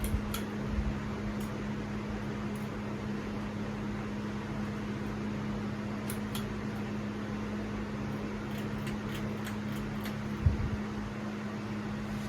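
Casablanca Four Seasons III ceiling fan running on high speed: a steady motor hum over the rush of moving air. A single low thump comes about ten seconds in.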